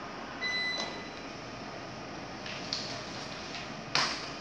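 Steady hiss of office room tone with a short, high electronic beep about half a second in. Small desk-handling noises follow: a few light clicks, then a sharp knock near the end as papers are picked up.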